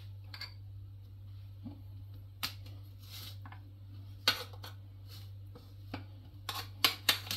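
Metal kitchen tongs clicking and tapping against an aluminium steamer basket and glass bowls as steamed pumpkin pieces are lifted out. Scattered sharp clicks, with a quick run of them near the end, over a steady low hum.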